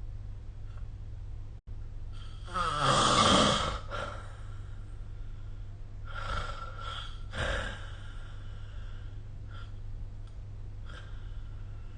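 A sleeping person snoring: one loud snore about three seconds in, then two fainter ones, over a steady low hum. The sound cuts out for an instant just before the first snore.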